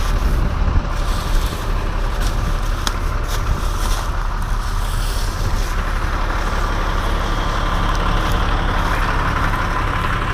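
Engine of a truck or work machine running steadily, with a few short knocks in the first few seconds. A higher machine sound builds toward the end.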